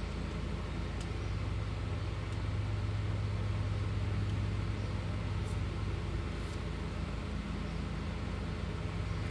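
A motor running steadily with a low hum, a little louder in the middle, with a few faint ticks.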